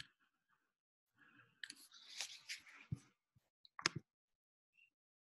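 Handling noise: faint rustling and crackling for about two seconds, then two sharp clicks.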